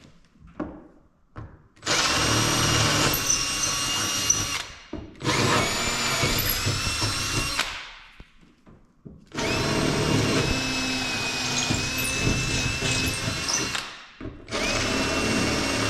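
Power drill boring mounting holes, run in four bursts of a few seconds each with short pauses between, its motor whining steadily while cutting.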